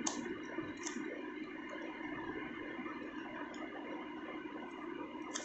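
A few short snips and clicks of scissors cutting packing tape along the edge of a cardboard box, over a steady background hum.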